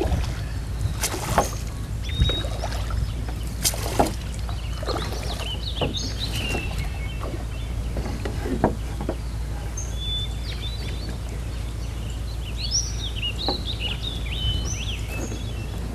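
Outdoor ambience: a steady low rumble with scattered knocks and clicks, and small birds chirping in the second half.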